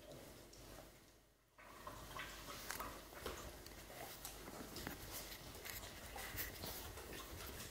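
A dog chewing and gnawing on a dried chew stick held between its front paws, a faint run of irregular small clicks and crunches with a brief lull about a second in.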